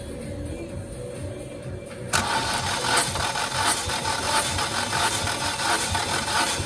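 Chery SQR481FC 1.8-litre four-cylinder engine turned over on its starter from about two seconds in, with a compression gauge in the first cylinder. This is a compression test, and the first cylinder reads 12 kg/cm².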